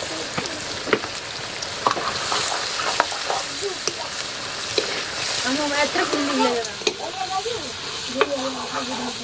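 Chicken pieces sizzling in hot oil in a large metal wok, stirred with a steel ladle that scrapes and clicks against the pan every second or so.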